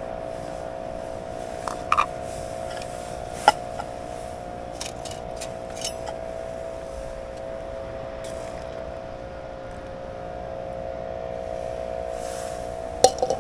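Fire Maple canister gas stove's burner running with a steady hum, and a few sharp metal clinks from the pot and cup, the last of them a short clatter near the end.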